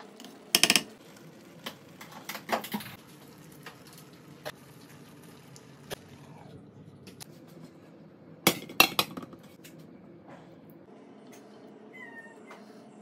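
Cooking utensils knocking and clattering against a nonstick frying pan of rice: a sharp clatter just under a second in, a few more around two and a half seconds, and a quick run of knocks near nine seconds.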